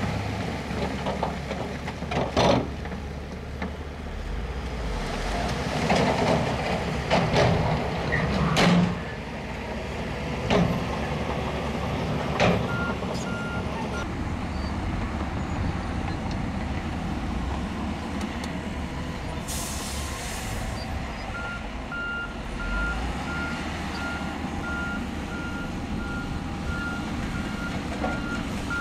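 Diesel engines of a Shantui crawler bulldozer and dump trucks running steadily, with sharp clanks and knocks of rock during the first dozen seconds. A short air-brake hiss comes about twenty seconds in, and a truck's reversing alarm beeps steadily through the last seven seconds, after a brief burst of beeps around twelve seconds in.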